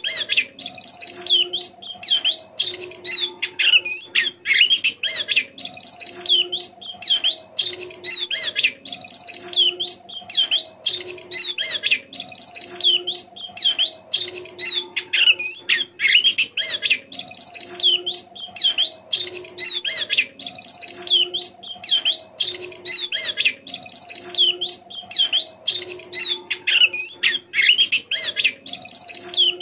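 White-eye (pleci) twittering continuously in a fast, high, chattering run of chirps and trills, a young bird practising its song. A fainter low tone repeats underneath.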